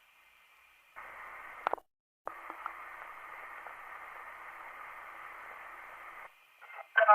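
Hiss and crackle of an old recording's surface noise, thin and narrow in range, with a sharp click about a second and a half in. Music from the next recording starts right at the end.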